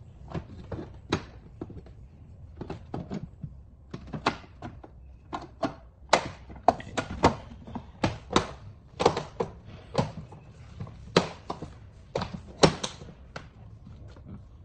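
Irregular sharp clicks and knocks of hard parts being handled and fitted: the handle and latch assembly going onto an LG front-loading washing machine door, and the door frame being moved about on a tabletop. The knocks come thickest in the middle.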